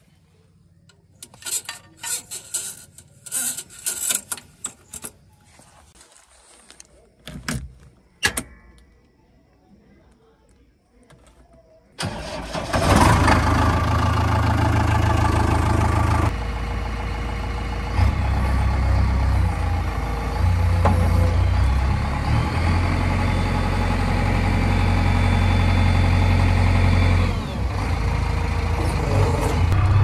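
A few sharp clicks and knocks, then about twelve seconds in the diesel engine of a JCB 3DX backhoe loader comes in suddenly and runs steadily and loud, its level shifting a few times.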